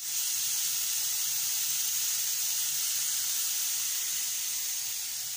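Chopped red onions sizzling in hot oil in a pan: a steady hiss that eases slightly toward the end.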